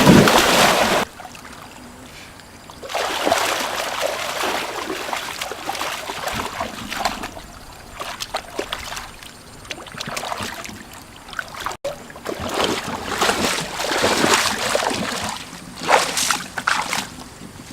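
Water splashing and sloshing in several bursts of a few seconds each, the loudest right at the start, typical of wading and groping for fish by hand in shallow water.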